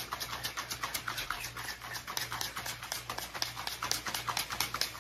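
Plastic shaker bottle of water and pre-workout powder being shaken hard, the liquid sloshing and slapping inside in fast, even strokes, about six a second.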